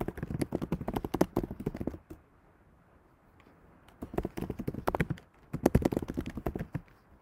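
Typing on a computer keyboard: quick runs of key clicks in three bursts, with a pause of about two seconds after the first.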